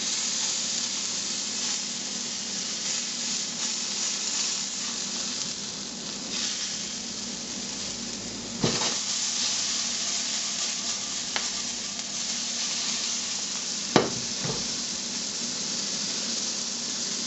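Halved rabbit hearts frying in a nonstick pan: a steady sizzle, with a few sharp clicks about halfway through and near the end.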